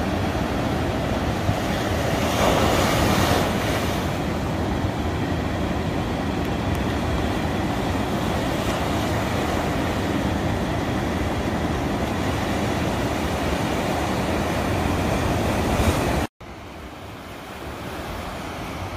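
Ocean surf: a steady rush of breaking waves and whitewater, swelling louder about two to four seconds in. Near the end it cuts out for an instant and comes back quieter.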